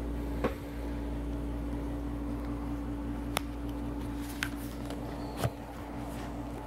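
Steady low hum with a constant tone, broken by four short clicks and knocks as a phone is handled and turned around.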